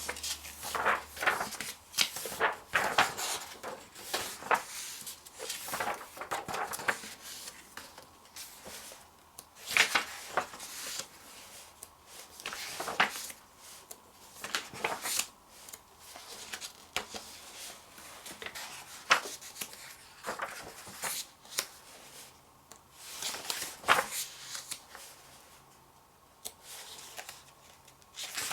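Glossy magazine pages being turned by hand, one after another, each turn a short crisp swish of paper, with a pause of a second or a few between turns.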